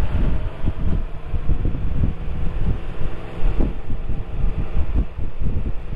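Heavy wind buffeting on the microphone, with a vehicle engine running steadily underneath.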